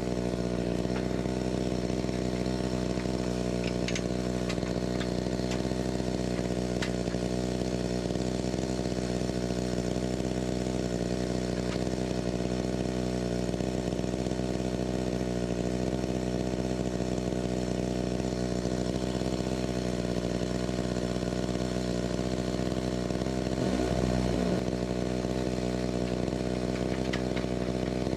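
Chainsaw engine running at a steady, unchanging speed, with a brief rise around 24 seconds in.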